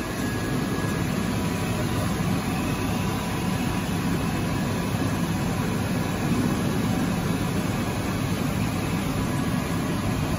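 Steady low hum of running factory machinery, with a faint thin tone above it and no distinct strokes or pauses.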